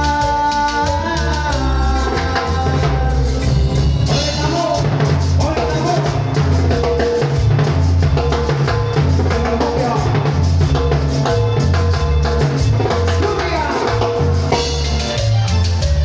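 A band playing an instrumental passage of sonidero-style Latin dance music, with a drum kit and a bass line carrying a steady beat.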